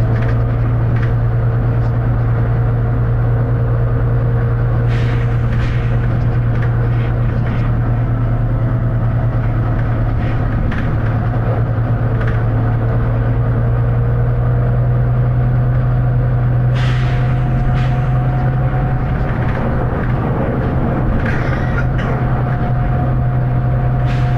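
Volvo B9TL bus's diesel engine running under way with a steady low drone, over which a thin whine glides slowly in pitch. A few brief hissing bursts come through, around a fifth, two-thirds and near the end.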